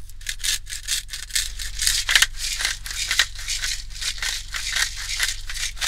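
Handheld salt and pepper grinders being twisted over a steak, a rapid crackling of many short grinding strokes.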